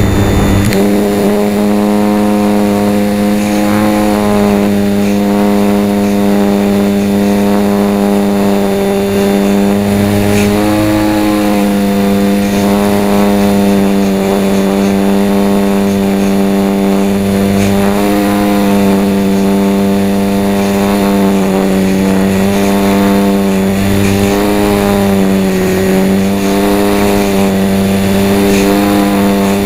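HobbyZone Champ micro RC plane's small electric motor and propeller whining, heard close up from a camera mounted on the plane. A steady, loud buzzing pitch that wavers slightly as the plane flies.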